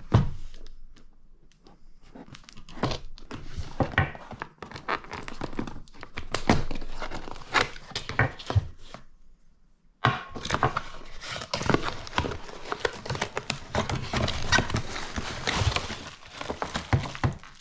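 A cardboard shipping box being opened by hand. Tape or cardboard tears, and packing crinkles and knocks in irregular bursts, with a short silent break just past halfway.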